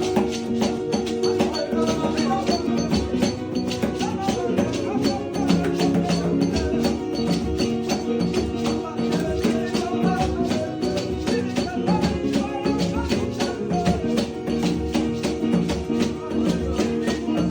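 Gospel worship music: sustained keyboard-style chords over a shaker keeping an even rhythm of about five strokes a second.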